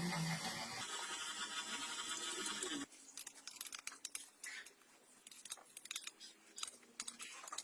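Yamaha RX100's single-cylinder two-stroke engine running with a steady buzz, then cutting off abruptly just under three seconds in, followed by faint clicks and ticks.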